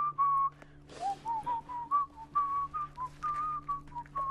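A person whistling a tune: a string of short notes wavering around one pitch, with a couple of brief rustles and a faint steady low hum underneath.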